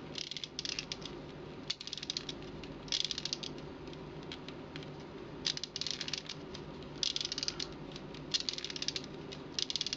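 Plastic Happy Meal Skipper wind-up toy being wound by hand: its spring motor gives rapid ratcheting clicks in short bursts, about seven twists in a row.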